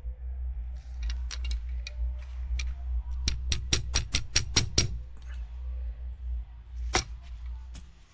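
A fast run of about ten sharp clicks over a second and a half, with scattered single clicks before it and one louder click near the end, over a low steady hum.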